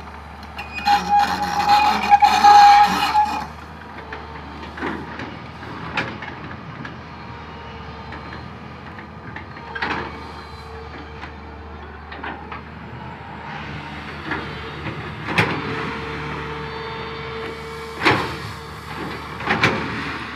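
Komatsu PC200 long-reach excavator working a pile of crushed stone: its diesel engine runs steadily under a hydraulic whine. A loud, noisy stretch with a high squeal comes about a second in, and sharp knocks and clanks of the bucket and stone follow every few seconds.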